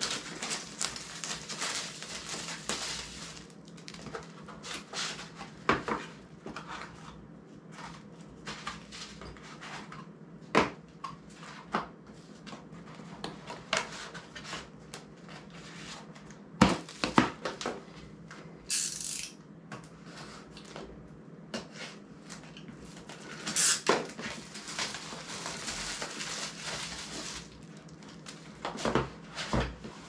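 Small metal quick-release parts being handled on a tabletop: scattered clicks and clinks, several sharper knocks, and stretches of rustling.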